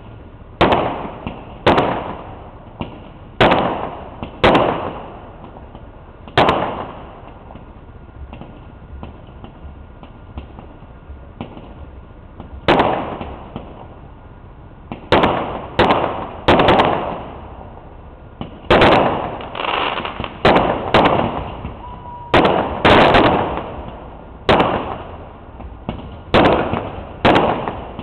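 Fireworks shells bursting one after another, each sharp bang trailing off in a rolling echo. After a lull of several seconds they come thick and fast, about one a second.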